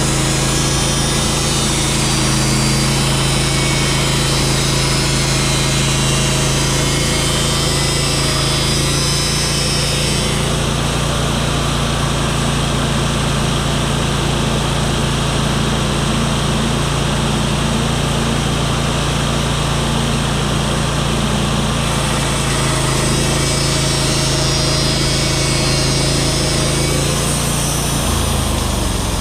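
Sawmill's engine running steadily under load as the blade cuts through a cedar log, the cutting noise changing texture partway through. Near the end the engine pitch drops as it winds down toward idle.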